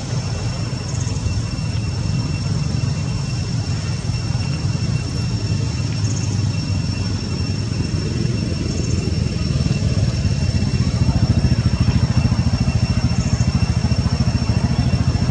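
A motor running steadily as a low rumble with a fast even pulse, growing a little louder about ten seconds in, with a thin steady high-pitched whine over it.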